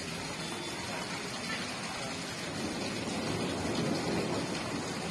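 Torrential rain falling and floodwater running through a waterlogged street, a steady rushing hiss that swells a little in the second half.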